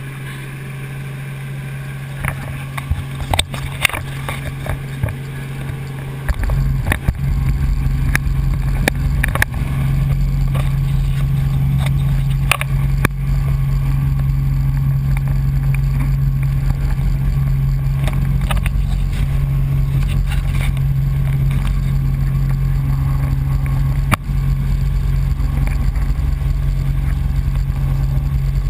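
Helicopter in flight, heard from on board: a steady, loud drone from the rotor and engine. A low rumble joins about six seconds in and the sound grows louder, with a few scattered clicks.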